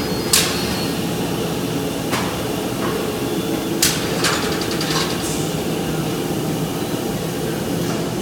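Large rotary thermoforming machine running: a steady mechanical hum with a handful of sharp clanks and brief hisses as its clamp frames move around the oval track, the loudest about half a second in and near four seconds in.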